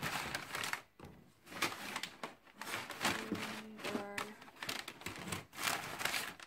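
Paper gift wrappers rustling and crinkling as hands rummage through a cardboard box of wrapped Christmas calendar packets. A brief low hum-like voice sound about three seconds in.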